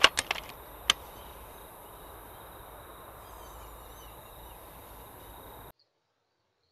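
A few sharp clicks in the first second, then a faint, steady outdoor night background with faint high chirping about three seconds in. The sound cuts out abruptly near the end.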